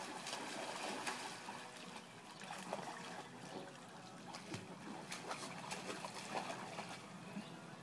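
Dogs wading and paddling through shallow water pooled on a pool cover: irregular small splashes and sloshing, with a steady trickling wash beneath.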